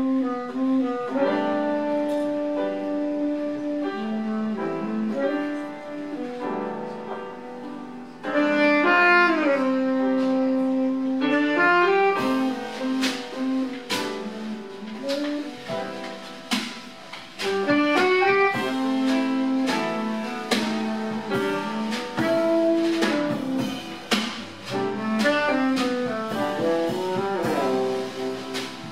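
Live acoustic jazz quartet: a tenor saxophone plays the melody over grand piano, upright bass and a drum kit. The cymbal and drum strokes get much busier about twelve seconds in.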